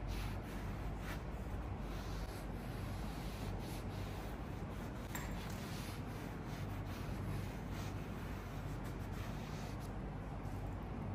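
Light scratching and rubbing, with faint scattered ticks over a steady low hum.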